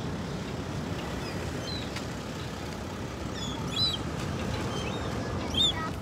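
Gulls calling: a few short, high cries, the loudest a little under two seconds apart about two-thirds of the way in and near the end, over a steady low outdoor rumble.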